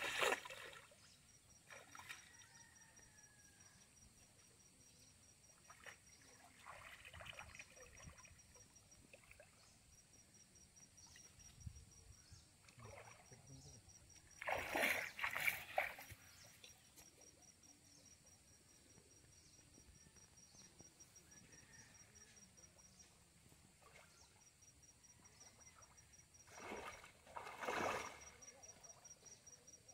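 Water splashing in a pond as people wade and drag a fishing net through it, in a few separate bursts, the loudest about halfway through and another near the end. A faint, high, evenly pulsing insect trill runs underneath.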